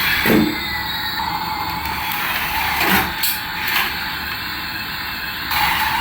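Remote-control toy aircraft running: a steady whir with a faint wavering whine, broken by four short knocks.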